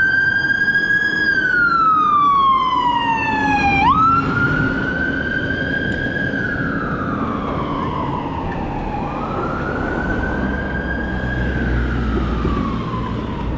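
Fire engine siren wailing: the tone sweeps up quickly and falls slowly, about every four to five seconds, three times over. It grows fainter after the first sweep, and a low vehicle rumble swells under it near the end.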